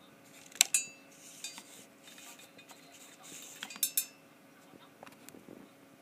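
A few sharp metallic clinks with a short ring: two close together near the start, then a quick run of three about four seconds in.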